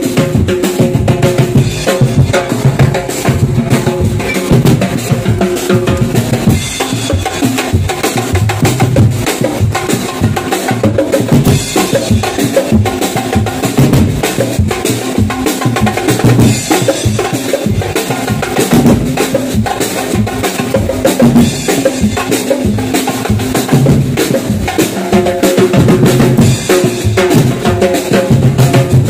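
Band music led by loud, busy drumming: bass drum and snare beating continuously, with held notes sounding over the drums for the first few seconds and again near the end.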